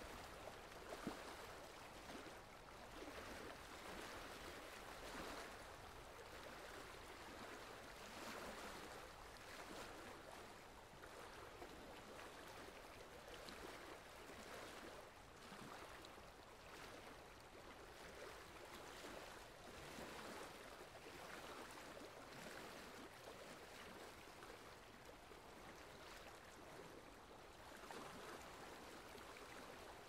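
Faint, steady splashing of a thin waterfall spilling onto wet rocks, gently swelling and easing every few seconds.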